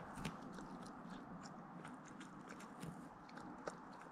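Border Collie puppy chewing and gnawing on a grass stalk: irregular small crunches and clicks, several a second.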